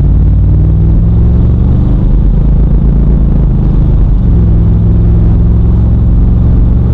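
1996 Buick Roadmaster's LT1 V8 engine running under way, heard inside the cabin: a loud low drone whose pitch shifts with speed and throttle.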